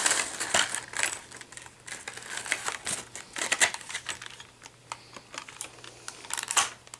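Small plastic toy parts and their plastic bags being handled: irregular light clicks and crinkling as a Beyblade launcher and ripcord are picked up and turned over, busiest at the start and again about six and a half seconds in.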